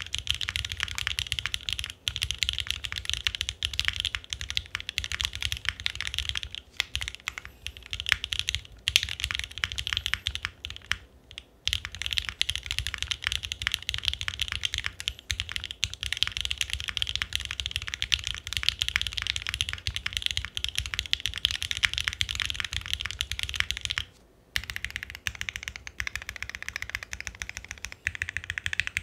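Steady, fast typing on a 60% mechanical keyboard built on a gummy O-ring mounted PCB with lubed Alpaca linear switches and GMK keycaps: a dense stream of key clacks, broken by brief pauses about 11 and 24 seconds in.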